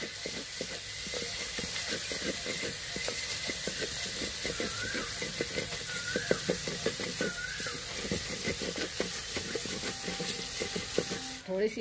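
A tadka of onion, garlic, green chilli, tomato and raw mango sizzling in hot oil in a pan as it is stirred, the spoon scraping and tapping against the pan over and over.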